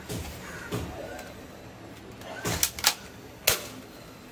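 Hollow plastic clicks and knocks from a red plastic toy rifle being turned over in the hands: soft knocks at first, then three quick clacks a little past halfway and one sharp clack soon after.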